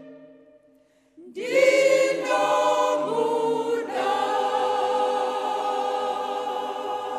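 Choir singing a gospel hymn. One phrase dies away, and after a short pause the voices come in again about a second in and hold long, sustained notes.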